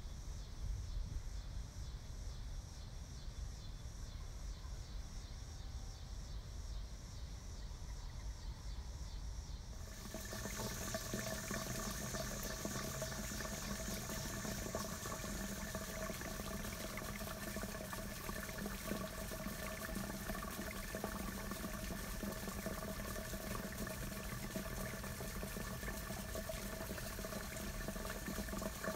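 A low outdoor rumble, then, about ten seconds in, water starts running and splashing steadily in a granite fountain basin.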